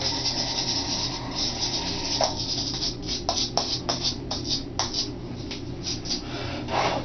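The high-speed cutter of an ornamental-turning lathe runs down and stops. Then about a dozen light, irregular clicks and taps from the machine come over a steady low hum.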